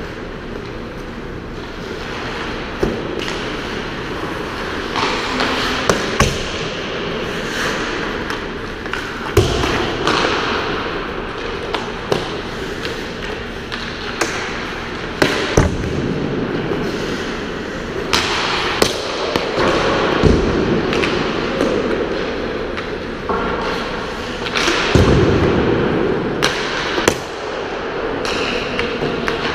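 Ice hockey practice in an indoor rink: pucks and sticks striking the ice, boards and glass in sharp, irregular knocks, some ringing out in the arena, with skate blades scraping the ice over a steady background noise.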